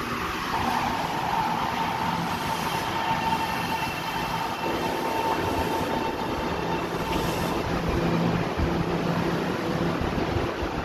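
Taiwan Railway electric multiple-unit train at a station platform, its electrical equipment giving a steady whine at one pitch over a low hum and general rumble. The whine fades out about three-quarters of the way through.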